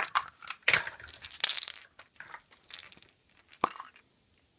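Hands rummaging among hollow plastic surprise eggs: irregular plastic rustling and crinkling, with a single sharp click about three and a half seconds in as a capsule snaps open.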